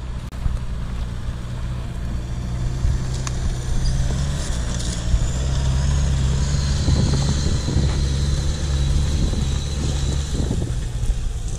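Mitsubishi L200 pickup's engine pulling hard under load as it climbs a steep, loose slope. The drone gets louder and rougher about halfway through.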